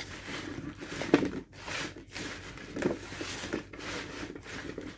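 Hands tossing oiled russet potato chunks on a baking sheet: irregular shuffling and rubbing, with a few sharper knocks of potato against the pan.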